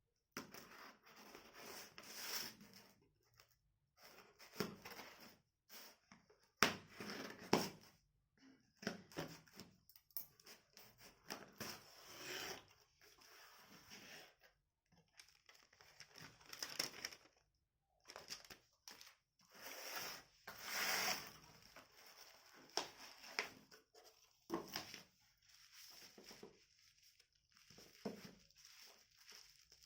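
Phone packaging being unwrapped and handled: plastic wrap and paper tearing and crinkling in irregular bursts, with sharp clicks and knocks of the box.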